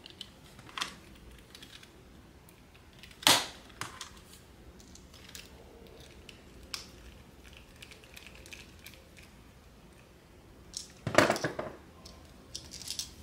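Scattered small clicks and taps of metal bag hardware being handled: tiny screws set into the back plate of a grommet and driven with a small screwdriver. One sharper tap about three seconds in, and a quick run of clicks near the end.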